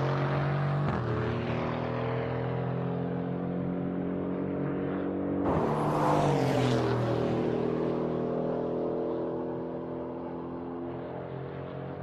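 Aston Martin Vantage safety car's twin-turbo V8 running at steady revs. A little over five seconds in its note jumps louder and falls in pitch, then it grows quieter toward the end.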